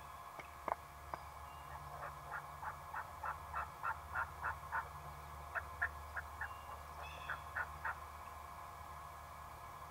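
Turkey yelping: a run of about ten short, even yelps at roughly three a second that grows louder, then two shorter runs of yelps, after two sharp clucks near the start.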